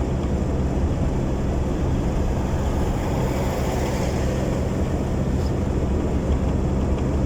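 Steady car engine hum and road noise, with no changes or distinct events.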